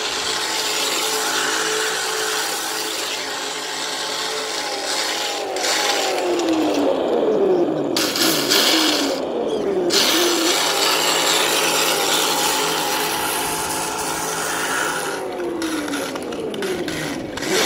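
Electric RC car motor and drivetrain whining at high revs during a burnout, the wheels spinning against the ground with a steady hiss. The whine holds its pitch, then drops and climbs again several times in the middle and once more near the end as the throttle comes off and back on.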